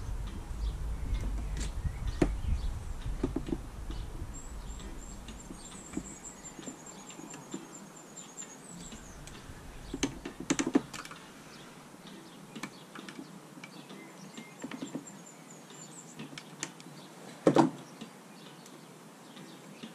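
Scattered clicks and knocks of chainsaw parts being handled and fitted back together, with two louder knocks around ten and seventeen seconds in. A high, rapid trill sounds twice in the background.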